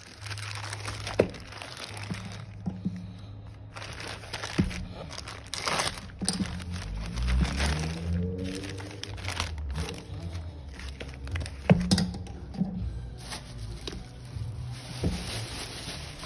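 Plastic courier mailer crinkling and rustling as it is handled and a padded bubble mailer is pulled out of it, with a couple of sharp knocks, about a second in and again past the middle. A low steady hum runs underneath.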